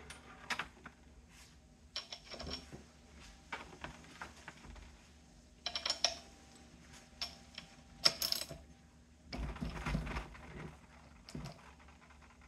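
Scattered metallic clicks and clinks of hand tools working a bolt loose on the front of a BMW R69S engine, coming in short groups. About ten seconds in there is a duller, lower rubbing noise lasting about a second.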